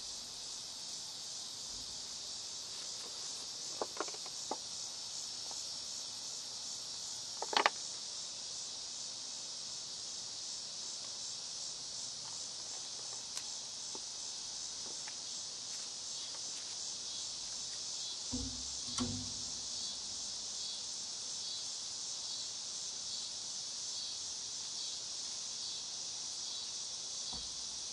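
Steady chorus of crickets chirping, with a few sharp clicks, the loudest about seven and a half seconds in, and a couple of short low knocks near the two-thirds mark.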